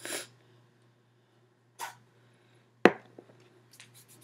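Two short sniffs as a roll-on perfume bottle is held under the nose and smelled, then one sharp knock, the loudest sound, followed by faint small handling clicks.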